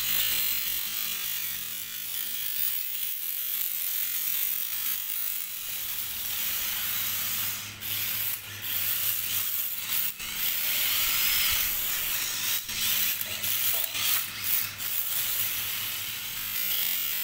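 Small electric RC drift cars driving and sliding: the motors and geared drivetrains whine and chatter, rising and falling in pitch with the throttle, over a hiss from the hard drift tyres sliding on the floor, with a few sharp clicks.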